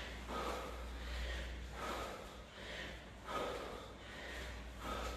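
A person breathing hard and fast in short noisy puffs, about one every three-quarters of a second, out of breath from exercise. A faint steady low hum lies beneath.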